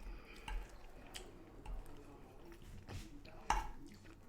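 Quiet wet chewing and lip-smacking from a toothless mouth gumming food, with a sharper smack about three and a half seconds in.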